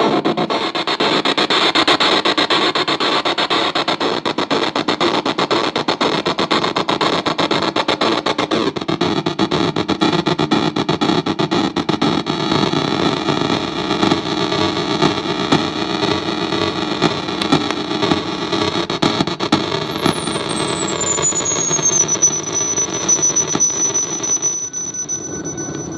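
Harsh, glitchy noise from a circuit-bent Korg DDD-1 drum machine patched through a digital effect unit: a dense squealing wash with many held tones. About twenty seconds in, a high whistle glides down and then holds steady.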